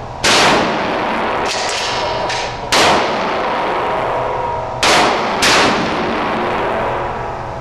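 Gunshots at a shooting range: four loud shots, the last two about half a second apart, each with a ringing tail, and fainter shots in between.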